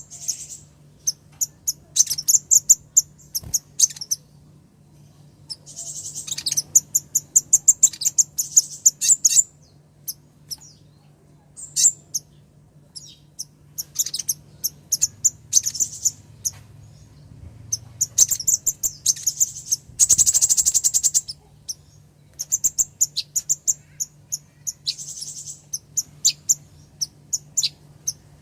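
Female kolibri ninja sunbird calling in runs of rapid, high-pitched chirps, with a fast, dense trill about twenty seconds in. This is the female's call used as a lure to draw a male into calling. A faint steady low hum runs underneath.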